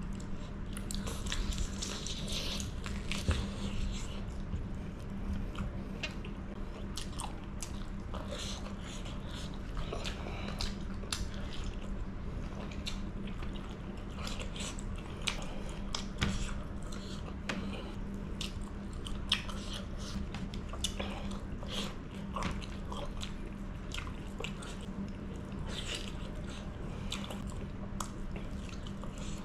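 Close-miked chewing and biting of a person eating chicken curry by hand, with many short wet smacks and clicks throughout, over a faint steady hum.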